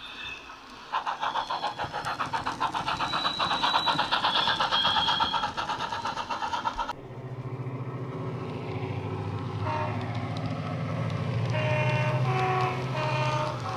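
A fast, rhythmic pulsing with high steady tones over it for the first six seconds, then a sudden change to a model Class 68 diesel locomotive's sound decoder: the diesel engine running with a steady low hum. From about ten seconds in, its horn sounds several short notes at two pitches.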